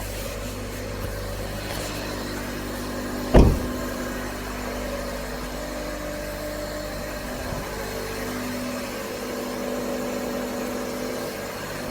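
A 2014 Kia Rondo's engine running steadily at idle after a cold start, with one sharp, loud thump about three and a half seconds in.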